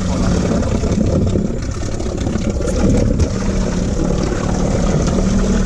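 A motor running steadily, with a low even hum under a rushing noise.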